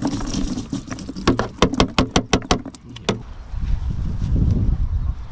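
A rapid run of about ten sharp clicks or taps over nearly two seconds, then low wind rumble on the microphone.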